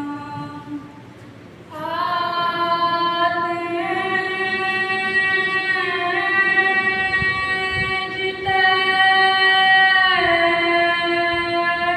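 A woman singing an unaccompanied solo chant through a microphone, in long held notes. It is quieter for the first couple of seconds, then louder, with each note held about two seconds before sliding to the next.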